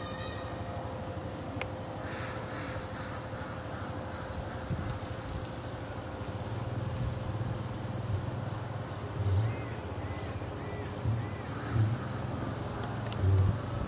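Insects chirping in a fast, even, high-pitched rhythm, with a few low thumps in the second half.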